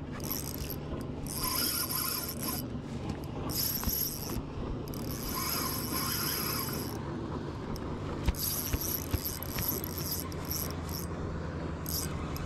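Fishing reel being cranked in bursts to fight a fish hooked on a topwater bait, its gears and drag whirring and clicking. A steady low boat-motor hum runs underneath.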